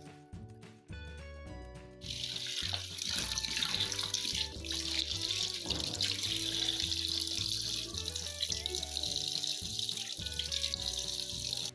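Water running from a tap into a sink, starting about two seconds in and stopping near the end, over background music.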